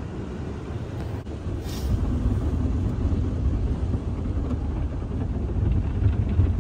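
Automatic car wash spraying foam and water over a car, heard from inside the closed cabin as a steady low rumble that builds slightly toward the end.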